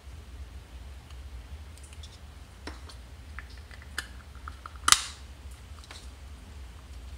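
Small plastic clicks of wire connectors and a plastic case being handled, with one sharp snap about five seconds in as the two halves of the scooter's motor controller case are pressed shut. A low steady hum runs underneath.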